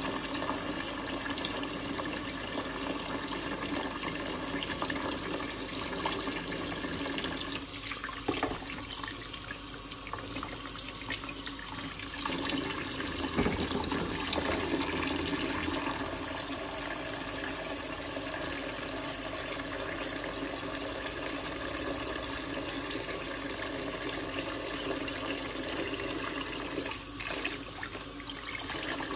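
Kitchen tap running steadily into a bowl of water in a stainless steel sink, splashing as lamb trotters are washed by hand, with a few light knocks.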